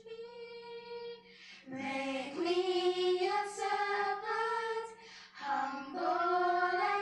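A small group of schoolchildren singing together into microphones in long held notes, in three phrases with short breaths about a second in and about five seconds in.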